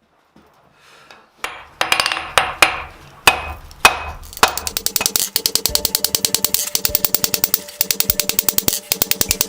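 Hammer blows on hot steel at the anvil while forging a cone mandrel: six separate, ringing heavy blows, then from about halfway a fast, even run of strikes at about eight a second.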